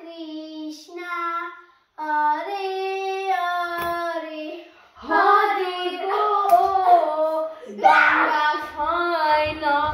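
A child singing long, held notes that slide from one pitch to the next, growing louder about halfway through.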